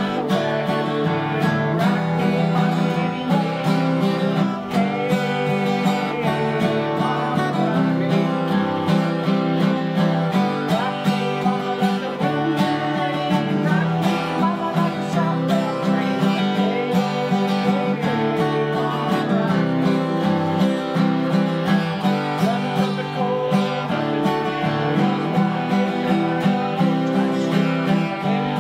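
A duo of guitars, one acoustic and one electric, playing a steady strummed tune together.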